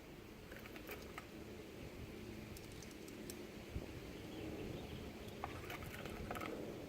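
Faint, irregular small clicks of cartridges being pressed into a pistol magazine, in two clusters, about a second in and again past the five-second mark.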